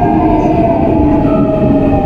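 Seoul Metro 4000 series subway car running, its GEC Alsthom GTO-VVVF inverter and traction motors whining over steady wheel and track noise. Several whine tones slide slowly down in pitch as the train loses speed.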